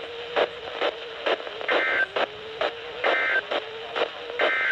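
Emergency Alert System end-of-message signal over a weather radio: three short bursts of warbling digital data tones, a little over a second apart. Radio static runs under them, with about two crackling pops a second and a steady low hum.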